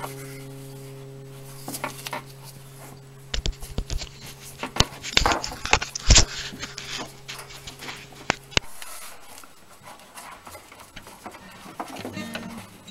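Metal clanks, clicks and scrapes as locking pliers grip and work the suspension hardware at the rim of a top-load washer's tub, busiest in the middle with the loudest knock a little past halfway. Under them runs a steady electrical hum that stops about two-thirds of the way through.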